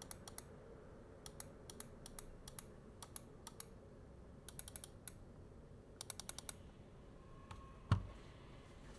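Computer keyboard keys clicking in short runs of quick typing, then one dull thump near the end.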